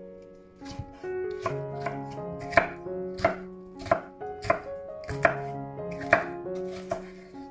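Kitchen knife chopping vegetables on a cutting board: a steady run of sharp strikes, roughly one every half second or so, over soft background music.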